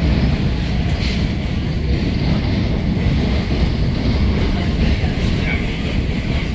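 Steady rumble and rolling noise of a moving passenger train, heard from on board as its wheels run along the rails.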